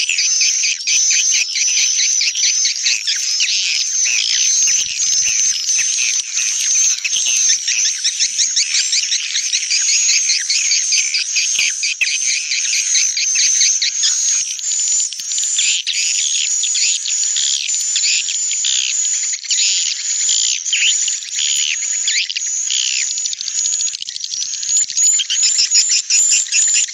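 Recorded swiftlet lure sound: a dense, unbroken chatter of high, rapid twittering chirps. It is a 'call' (panggil) recording layered in stereo with a 'roosting' (inap) recording, the kind played from a swiftlet nest house to draw the birds in to roost.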